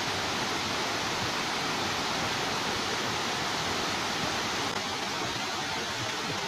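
Water overflowing a dam's concrete spillway and pouring down its face, a steady unbroken rush.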